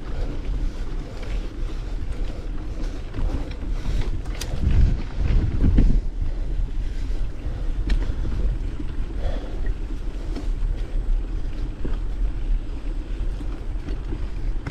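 Wind buffeting the microphone of a moving mountain bike, a steady low rumble that swells about five seconds in, with scattered light ticks and rattles.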